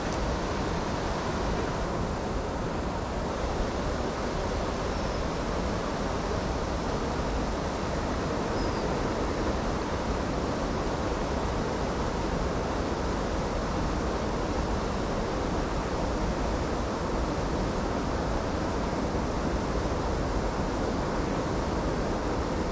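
Steady rushing of river water pouring over a weir: an even, unbroken hiss.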